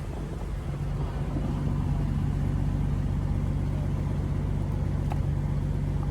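Fishing boat's diesel engine running with a steady low hum, growing louder over the first two seconds and then holding level.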